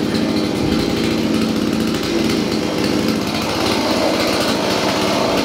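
Gas chainsaw engine running steadily with no revving, not yet cutting.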